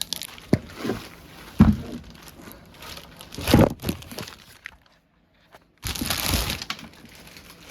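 Polythene plastic wrapping being pulled off and crinkled by hand, in a run of uneven rustling bursts with a brief gap a little past the middle.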